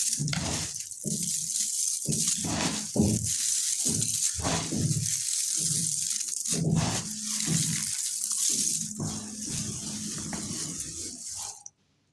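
Lumps of multani mitti (fuller's earth) being crushed and crumbled, an irregular run of dry crunches over a steady gritty hiss. It stops abruptly near the end.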